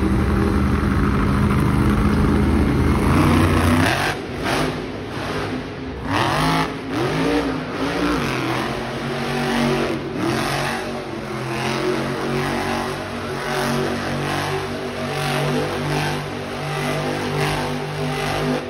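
Monster truck's supercharged V8 running loud, its revs rising and falling as the truck drives and spins in the dirt, echoing around an indoor arena.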